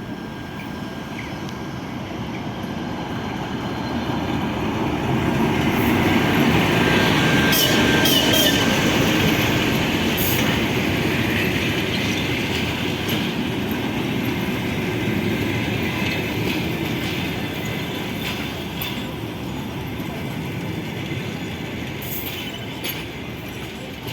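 Passenger train arriving behind a TEP70BS diesel locomotive: a steady rolling rumble of locomotive and coaches passing that swells to its loudest about eight seconds in, then slowly fades as the train slows. Wheel clicks over rail joints are heard, and there is a faint wheel squeal.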